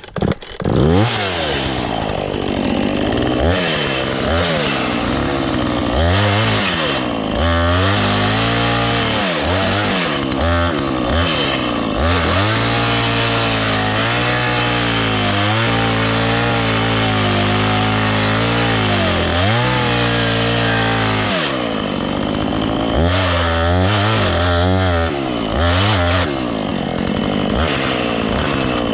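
Husqvarna two-stroke chainsaw cutting into a dead elm trunk, coming up to speed about a second in, then revving up and down and holding steady under load through the middle, with a brief drop in engine speed later on. The chain is dull, which shows in the cut.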